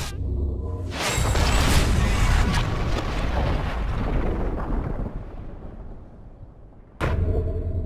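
Film battle sound mix: a deep rumbling blast that fades away over about five seconds, then a sudden heavy boom near the end, with music underneath.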